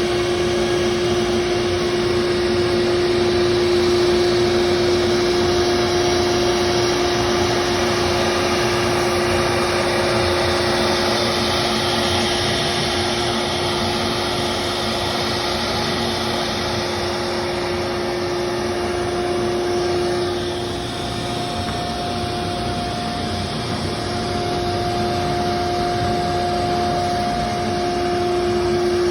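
CNC machine running while machining a door, a steady spindle whine over cutting and motor noise. About twenty seconds in the whine shifts to a higher pitch and the sound dips briefly, then builds again, with the lower whine returning near the end.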